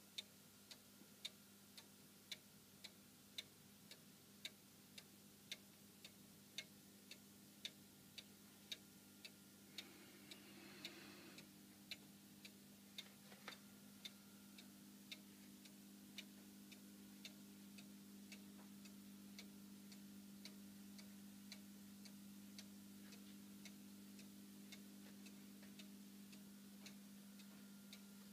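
Hönes Black Forest cuckoo clock ticking steadily and faintly, about three ticks every two seconds. Beneath it runs a faint steady hum that grows slightly louder about halfway through.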